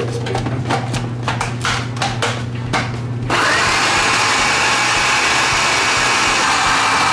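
Countertop food processor switched on about three seconds in and running steadily, chopping a dry panko breadcrumb, basil and mushroom mixture. Before that, a run of short knocks.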